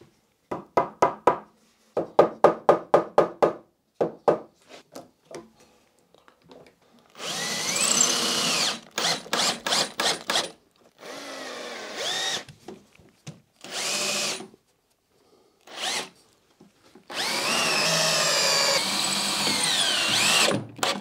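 A mallet tapping a wooden worktop panel into position, a run of quick sharp taps over the first few seconds. Then a cordless drill runs in several bursts, the longest near the end, its pitch rising and falling as it speeds up and slows down.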